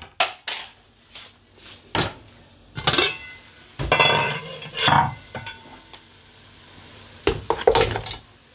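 A metal ladle or spoon knocking, clinking and scraping against a metal cooking pot, in a few separate bursts with a short metallic ring, the loudest near the middle and again near the end.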